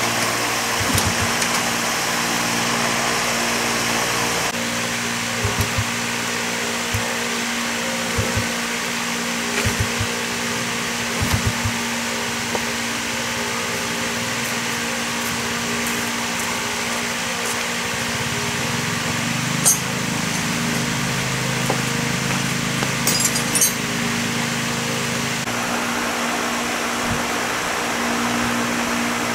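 Small single-cylinder motorbike engine idling steadily, with a few light clicks and knocks over it; its note changes slightly a few seconds before the end.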